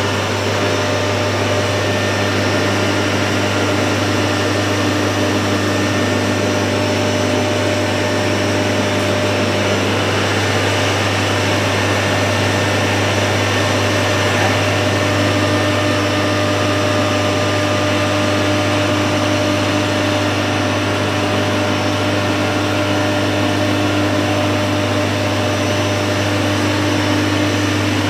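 Sugar grinding machine (pulverizer) running steadily under its electric motor, a loud, even mechanical whir with rushing air through its pipework and a steady low hum.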